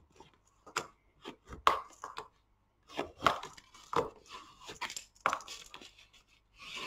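Cardstock pulled under a bone folder pressed flat on the table to curve it, making a series of short scraping and rustling strokes.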